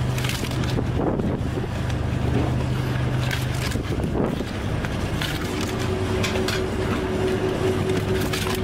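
Boat engine running steadily, its pitch shifting about four seconds in, with a few knocks from the cray pot being handled.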